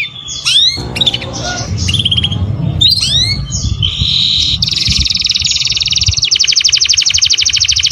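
Songbird song: a few sharp up-swept chirps with a low rumble beneath, then a buzzy note and, from about halfway on, a long, fast trill of rapidly repeated falling notes.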